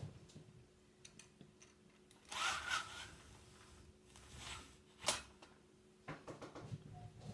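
Handling and rustling noises as someone moves about: a brief rasping rustle about two seconds in, a single sharp click about five seconds in, then a run of soft knocks and bumps near the end, over a faint steady hum.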